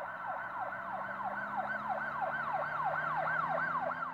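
Electronic emergency siren in fast yelp mode: rapid rising-and-falling wails, about three to four a second, steady throughout.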